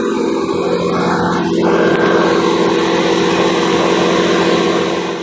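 A small motor running steadily with an even hum. A hiss joins it about a second and a half in.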